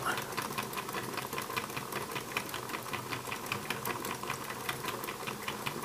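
Meccano reduction gear train chattering as its input is spun by hand: brass pinions and gear wheels meshing in a steady fast run of fine ticks. Even so, the 3,125:1 gearbox's output shaft barely moves.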